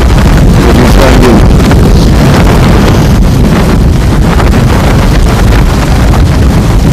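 Loud, steady rush of wind buffeting the microphone.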